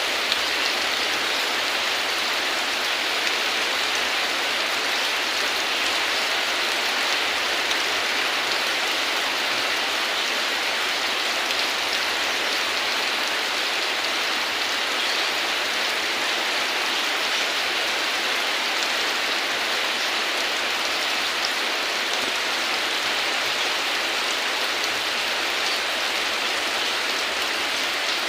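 Steady, heavy rain falling, an even hiss of drops with no let-up.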